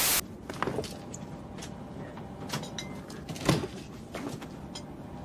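A brief burst of loud TV-static hiss at the very start, then the low steady background of an airliner cabin with a few scattered clicks and knocks, the loudest about three and a half seconds in.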